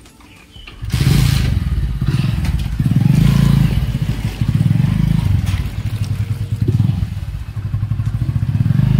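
A small commuter motorcycle's engine starting about a second in and then running, its revs rising and falling a few times.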